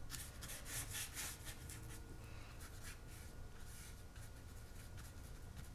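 Faint short strokes of a paintbrush laying acrylic paint onto smooth hot-press watercolor paper, over a low steady hum.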